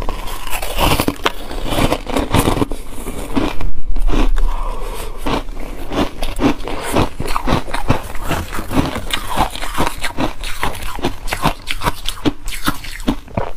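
Close-miked biting and chewing of frozen coloured ice: a rapid, irregular run of crisp crunches, loudest about four seconds in.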